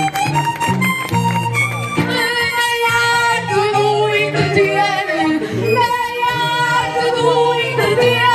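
Live Portuguese folk music for a desgarrada: a sung, wavering vocal line over a sustained squeezebox-style folk-band accompaniment.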